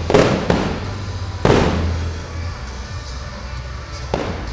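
Aerial fireworks shells bursting: two sharp bangs in the first half second, a louder bang about a second and a half in that rolls on for about a second, and another bang near the end.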